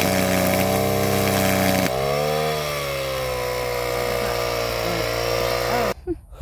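Brush cutter's small engine running at cutting speed as it trims grass, a steady high buzz whose pitch sags and recovers about two seconds in as the head bites into the grass. It stops suddenly near the end.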